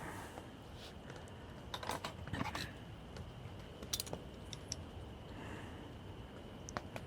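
Scattered light clicks and clinks of an eating utensil against a plate, a few seconds apart, over a steady low background noise.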